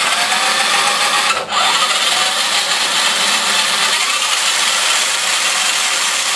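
RC car's rear electric drive motor and gears running at full speed with the wheels off the ground, a loud screaming whine. About a second and a half in it cuts out for a moment as the relays switch it from reverse to forward, then it runs on.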